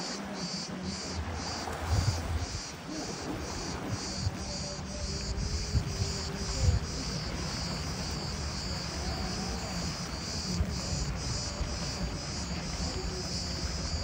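Cicadas singing in a rhythmic, pulsing chorus, two to three pulses a second. A low rumble of wind on the microphone runs underneath.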